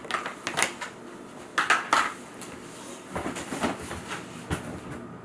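Kitchen clatter: dishes and utensils knocking and clinking in a scattered run of sharp clacks, the loudest about a second and a half in.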